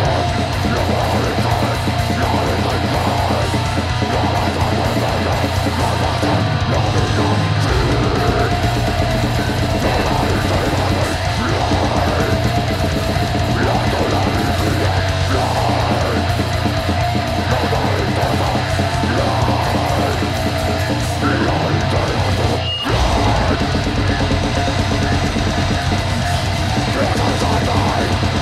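Live heavy metal band playing: distorted electric guitar through Marshall cabinets over a full drum kit, dense and loud throughout, with one very short break in the playing about three-quarters of the way through.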